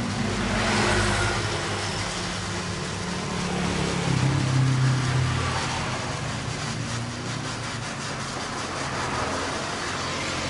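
Gas welding torch hissing steadily as a motorcycle muffler is welded with a filler rod, over an engine running nearby that swells in pitch and level about four seconds in.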